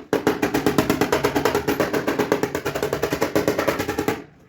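Rapid, even hammering on car body sheet metal by a powered tool, about ten strikes a second. It cuts off suddenly near the end.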